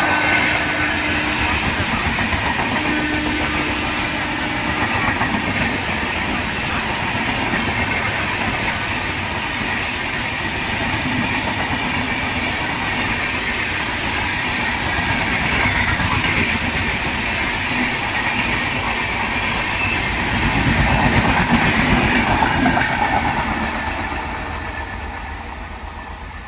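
Passenger express train running through a station at speed: a steady rumble of coach wheels on the rails with a fast clickety-clack over rail joints, loudest about twenty seconds in, then fading away near the end.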